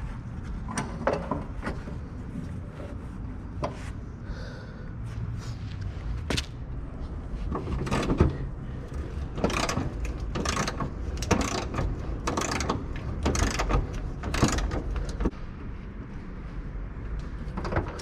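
A power tool run in short bursts, roughly one a second, driving in the bolts that hold the fuel tank up, with a few sharp clicks before the bursts start.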